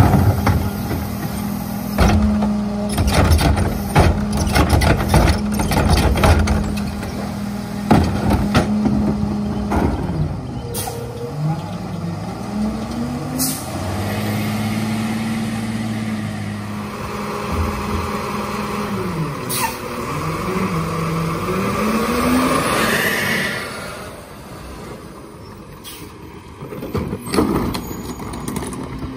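Freightliner M2 garbage truck with a Heil PowerTrak rear-loader body: the engine runs at steady raised revs with clanks and knocks for the first ten seconds or so, then its pitch rises and falls through gear changes as the truck pulls away and drives to the next stop. An air-brake hiss comes about 23 seconds in, and the engine drops to idle with a few knocks near the end.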